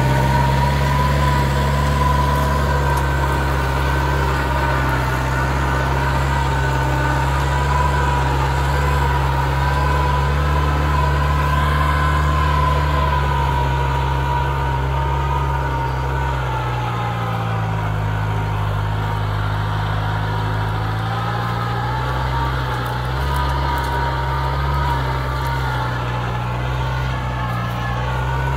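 New Holland TD90D tractor's diesel engine running under load while pulling a mouldboard plough through the soil, with a steady high whine above the engine note. About two-thirds of the way through, the engine note drops for a few seconds and then comes back up.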